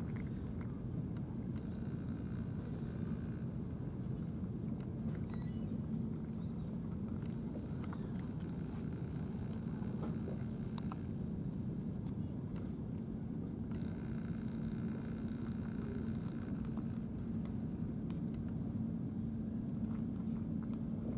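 Steady low engine hum and rumble that holds one pitch throughout, with a few faint scattered clicks.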